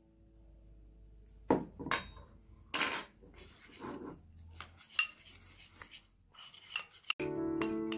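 Metal spoon stirring a thick, gritty spice paste in a ceramic bowl: scraping against the bowl with several sharp clinks. Music comes in near the end.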